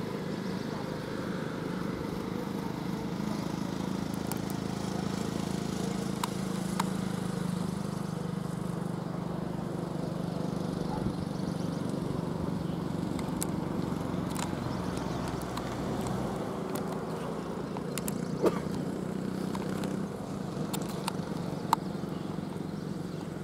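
Truck engine running steadily with a low, even drone, and two sharp clicks near the end.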